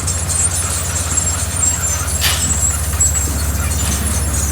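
Heavy diesel earthmoving machinery running steadily, a low engine drone with rattling over it, and a short hiss a little over two seconds in.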